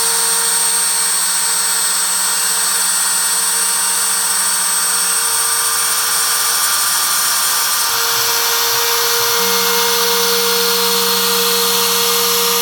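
MPCNC router's spindle running steadily as it mills 4 mm plywood, a high whine over a lower motor hum that shifts and restarts a few times as the machine changes moves.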